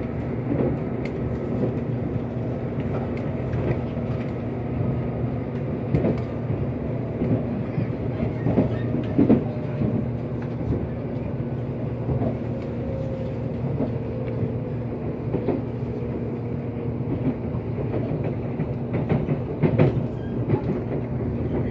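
Nankai limited express Kōya heard from inside the passenger cabin, running toward a station stop: a steady running hum with scattered sharp wheel clicks over the rails. A denser run of clacks comes near the end.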